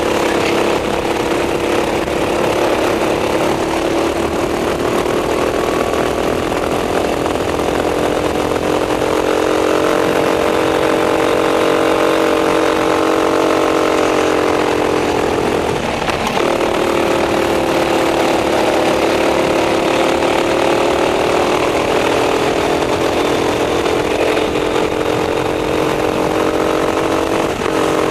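Racing kart's engine held at high revs, heard from a camera mounted on the kart; its pitch slowly climbs and sags through the corners and drops off briefly twice, about halfway through and near the end.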